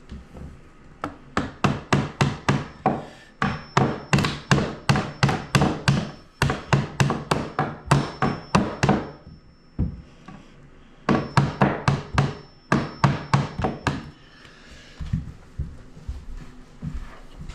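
Hammer driving nails into a wooden cabinet: four quick runs of strikes, about three or four a second, with short pauses between them.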